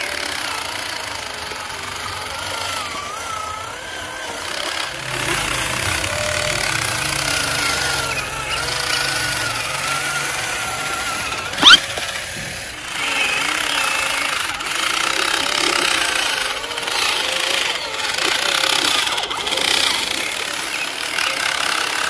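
Small electric motor and plastic gearbox of a toy truck running with a rattle and a whine that wavers in pitch as it tows a loaded toy dump truck. About halfway through there is one sharp, loud sweep-like click.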